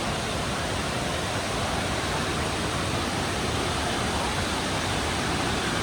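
Mae Ya Waterfall, a tall waterfall in heavy flow after the rains, giving a steady, unbroken rush of falling water.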